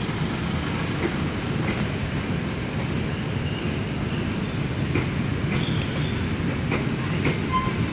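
Passenger train coaches rolling slowly past at low speed as the train pulls out: a steady rumble of wheels on rail, with scattered clicks over rail joints and a couple of brief, thin wheel squeals in the second half.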